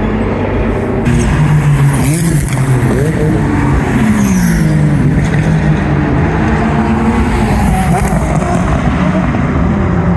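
GT2 race car engine revving hard, its pitch dropping and climbing through gear changes and then holding steady. Sharp crackles and pops from the exhaust come in between.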